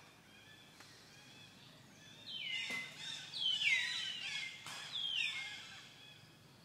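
Three loud high-pitched animal calls starting about two seconds in, a little over a second apart; each slides down in pitch and then holds steady, over faint background chirping.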